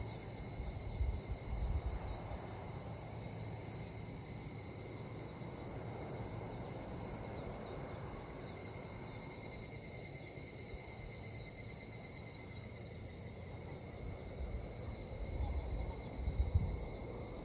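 A steady outdoor chorus of insects trilling at a high pitch, with a few low bumps near the start and again near the end.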